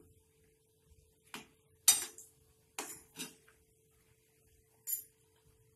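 A steel slotted spoon clinking and scraping against an aluminium kadai as samosas are turned in the frying oil: about five sharp clinks, the loudest about two seconds in.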